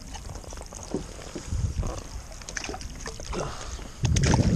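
Fishing gear knocking and clicking against a plastic kayak while a feather rig is wound in. About four seconds in comes a louder, noisy rush as the hooked horse mackerel and a small mackerel splash at the surface beside the hull.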